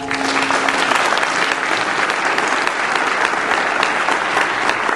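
Audience applauding, with the last ring of a gong dying away in the first second.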